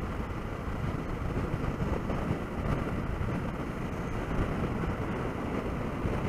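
Honda XRE 300 single-cylinder motorcycle running at a steady pace, its engine mixed with road and wind noise in a steady rumble.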